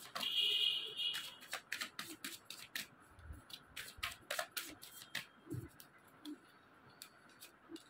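Tarot cards being shuffled by hand: a run of quick, irregular card snaps and flicks, coming thick in the first few seconds and thinning out after that.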